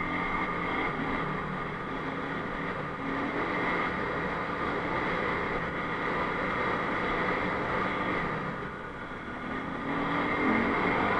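Enduro motorcycle engine running under way, its pitch and level rising and falling with the throttle. It eases off about eight seconds in and picks up again near the end.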